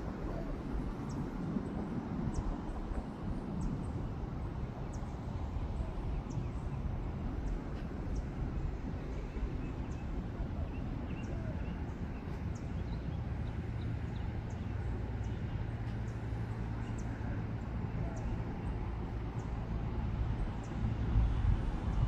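Outdoor ambience dominated by wind rumbling on the microphone, with a steady low hum coming in about halfway through and fading near the end. Faint short high ticks recur every second or so.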